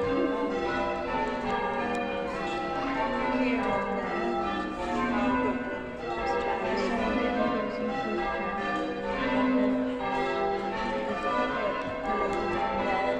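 Church bells ringing, one stroke following another without a break, their tones overlapping and hanging on.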